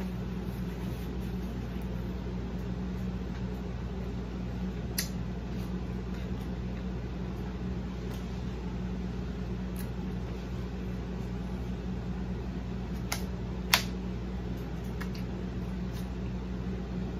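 Steady mechanical hum of a running fan or similar room appliance, low and even with a pitched drone. A few short sharp clicks sound over it, one louder than the rest about three quarters of the way through.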